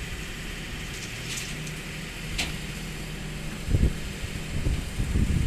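Excavator diesel engine running steadily, with a sharp click a little over halfway and several heavy low thuds in the second half as steel is handled.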